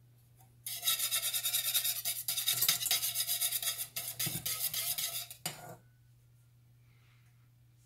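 Wire whisk stirring fast in a metal saucepan of strawberry puree, the wires scraping against the pan in quick strokes. It starts under a second in and stops after about five seconds.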